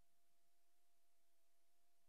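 Near silence: a faint steady hiss with a thin, even hum.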